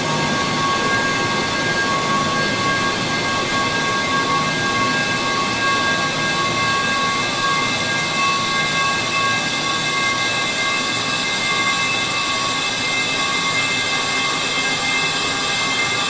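The falling-metal-pipe clang sound effect slowed down 32 times: the clang stretched into a steady, drawn-out metallic drone, with several high ringing tones held over a rough wash of noise.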